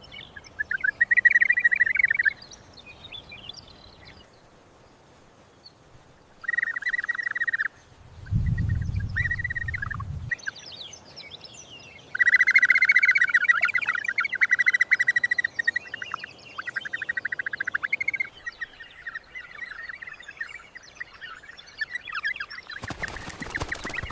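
Birds calling in repeated rapid, chattering trills, several bursts of a second or two each with softer chirps between. A low rumble comes about eight seconds in, and a sudden loud rushing noise near the end.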